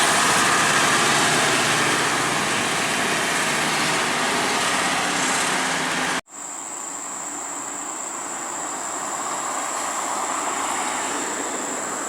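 Heavy vehicle engines running under load on an uphill climb, a loud steady drone. About six seconds in the sound cuts off abruptly and quieter, steady traffic noise with a thin high tone follows.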